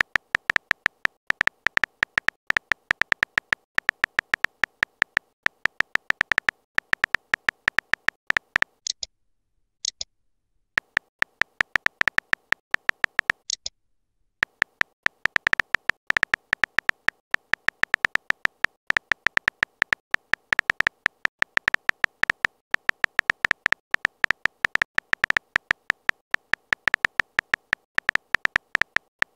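Smartphone keyboard tap sounds: rapid, irregular short clicks as a message is typed letter by letter, pausing briefly a couple of times.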